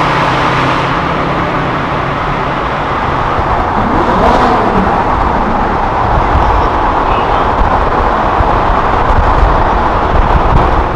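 Cars at speed in a road tunnel: steady engine and tyre noise with a low rumble, with a red Ferrari 458's V8 running alongside. An engine note rises briefly about four seconds in.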